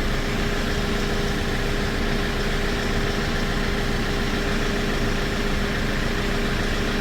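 Hyundai Porter II truck's diesel engine idling steadily, with a constant hum over it, just after a new air-conditioning compressor was fitted and the refrigerant recharged.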